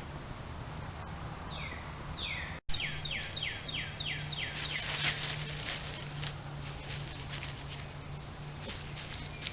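A bird singing series of quick down-slurred whistled notes, about four a second, with the sound cutting out for an instant before the second series. From about four and a half seconds in come irregular rustling crackles, loudest around five seconds.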